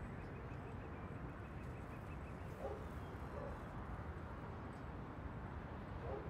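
Pigeons cooing a few times, softly, over a steady outdoor background hiss.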